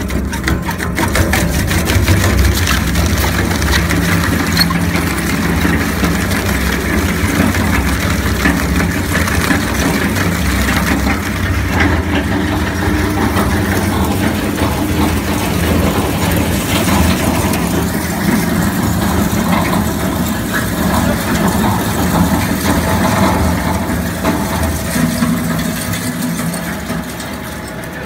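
Industrial shredder running under load, a steady motor and gear drone with continual crunching and cracking as its rotating blades tear up waste air-conditioner radiators.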